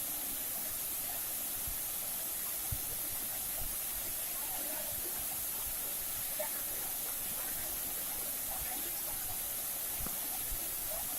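Steady hiss of falling water, with faint distant voices now and then.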